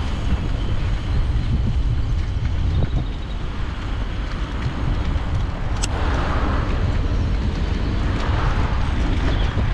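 An ICE Adventure HD recumbent trike rolling along a tarmac cycle path: a steady low rumble of tyres and wind on the microphone, with one sharp click about six seconds in and traffic swelling past twice in the second half.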